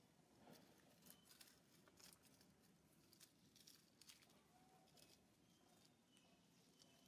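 Near silence: faint outdoor ambience with scattered light ticks and a few faint short chirps.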